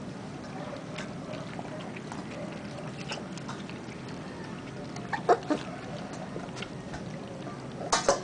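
Several four-week-old Labrador puppies lapping water from a stainless steel bowl: faint wet clicks of tongues in the water, with a few louder short sharp sounds about five seconds in and again near the end.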